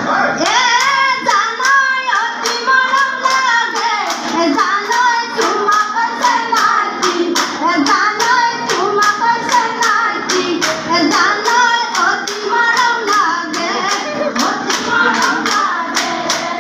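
A group of women singing a Jeng Bihu folk song together, with steady rhythmic handclaps keeping the beat.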